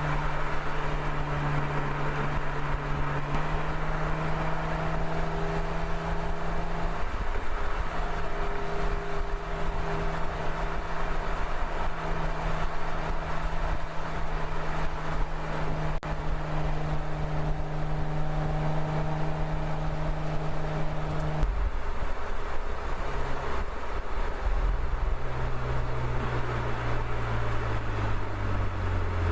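Mercedes-Benz SL engine and road noise while driving, the engine note holding steady for long stretches with a few changes in pitch, then falling lower near the end as the car slows.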